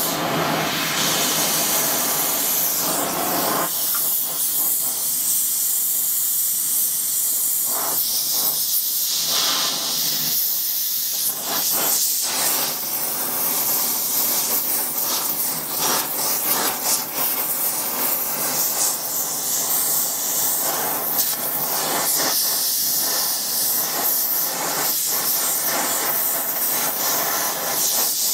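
Gas torch flame burning with a steady hiss, heating the body of a seized steam-waggon dump valve to free it.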